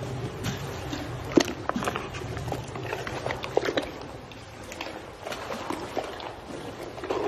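Water sloshing around a hippo's body, with a scatter of sharp, irregular knocks and small splashes as apples land in its open mouth and in the water.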